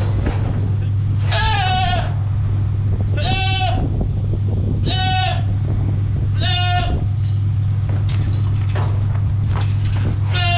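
Goat bleating five times: four short calls at even spacing, about one every second and a half, then one more near the end, over a steady low hum.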